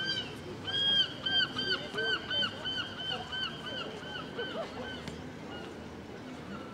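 A gull giving its long call: a fast run of repeated arching notes, about four a second, that fades out about five seconds in.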